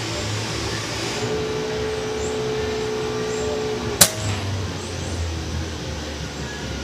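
A single shot from an FX Dreamline Pup .22 PCP air rifle about four seconds in, one sharp crack over steady background noise. A steady droning tone runs for about three seconds before the shot.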